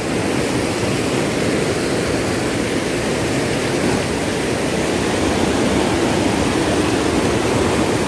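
Steady rushing of water from a waterfall and its stream, an even roar with no breaks.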